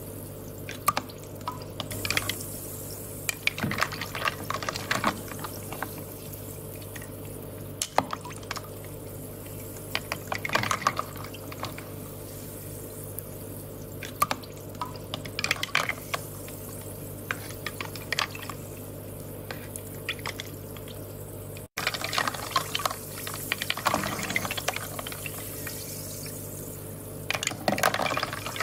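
Water trickling and dripping in irregular spells every few seconds, over a steady low hum. The sound cuts out for an instant about two-thirds of the way through.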